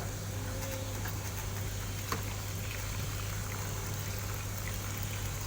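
Water trickling, heard as a steady hiss over a constant low hum, with a single sharp click about two seconds in.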